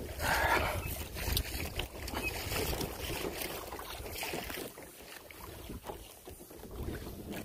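Kayak on open water: water against the hull, wind rumbling on the microphone, and scattered small clicks and knocks from handling.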